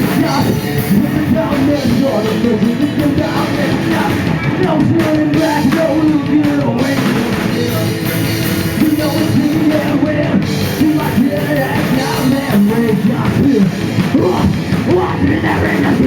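Live rock band playing a loud, driving song on electric guitars and a drum kit.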